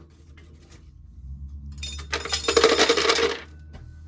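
Dry shelled corn kernels clattering down in a brief rush of many small hard ticks, lasting about a second and a half from about two seconds in, over a steady low hum.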